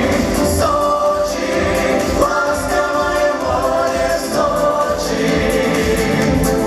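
Vocal ensemble singing in harmony over instrumental accompaniment with a steady low beat.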